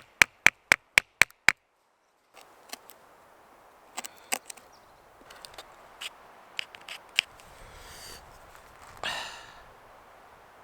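A folding knife cutting notches into a wooden stick: a quick even run of about seven sharp knocks, some four a second. After a short gap come a few scattered clicks and taps.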